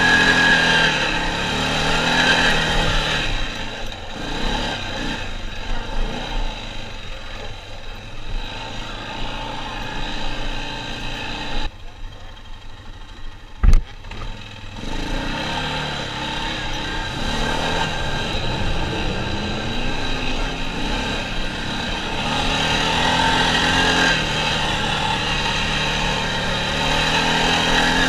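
Four-wheeler (ATV) engine running under load, its pitch rising and falling as the throttle is worked on the dirt hill climbs. About twelve seconds in it drops quieter for a few seconds, with one sharp knock in the middle of that stretch.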